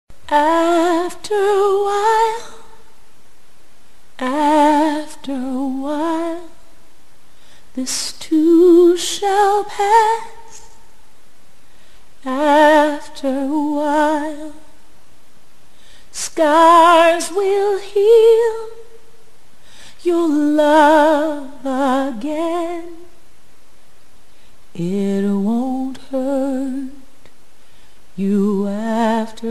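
A woman's voice singing unaccompanied, in slow phrases of about two seconds with short pauses between them and a wavering vibrato on held notes.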